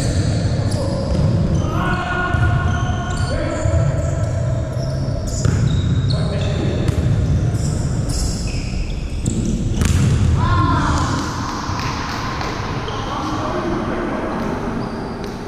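Indoor volleyball play in a large gym: repeated sharp ball strikes and thuds, short squeaks of sneakers on the court floor, and players' voices calling out, echoing in the hall.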